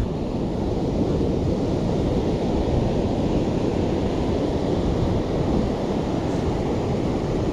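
Surf breaking on the beach, mixed with wind buffeting the microphone: a steady, low rushing noise.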